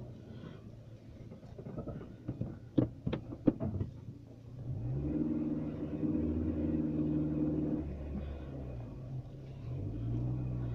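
Car engine heard from inside the cabin as the car pulls away slowly: a few sharp clicks and knocks, then the engine note rises about halfway through and holds steady, rising again near the end.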